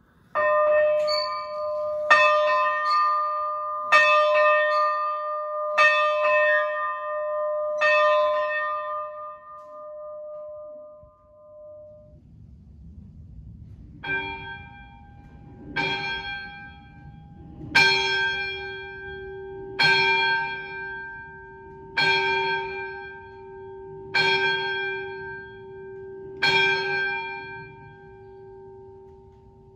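Two steam locomotive bells rung in turn. Terminal Railroad Association 318's bell is struck about five times, two seconds apart, and left to ring out. After a short gap, Lackawanna 952's lower-pitched bell is struck eight times at the same pace.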